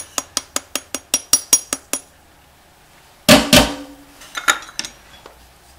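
Wire whisk tapping against a metal mesh sieve, about five sharp clicks a second, as flour is sifted through it; the tapping stops about two seconds in. About a second later comes one loud metal clatter with a short ring, followed by a few lighter clinks.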